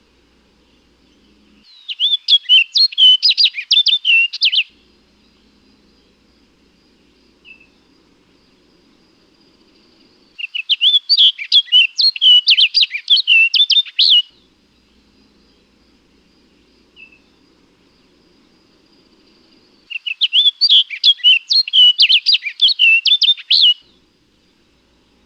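Orchard oriole singing: three bouts of rapid, varied song, each about three to four seconds long, with a single short note in each of the two gaps.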